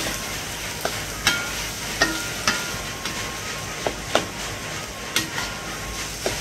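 A metal spatula stirring fish and chilli paste in a stainless steel wok, scraping and knocking against the pan about seven times at irregular intervals, each knock ringing briefly, over a steady sizzle of frying.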